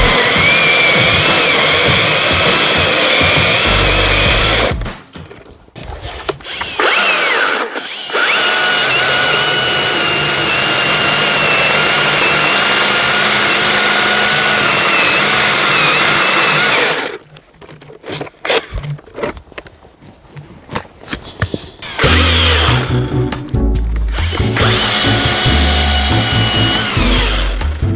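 Battery-powered chainsaw cutting birch: a steady motor-and-chain whine in three long runs, the pitch dipping slightly under load, with two pauses of a few seconds between them.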